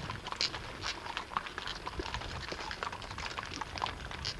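Hooves of a herd of cattle walking past on hard ground: many irregular, overlapping clicks over a low rumble.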